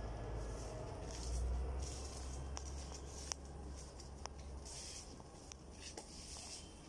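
Someone walking through dense leafy plants: faint rustling and scattered light clicks of leaves and footsteps, over a low rumble that fades over the first few seconds.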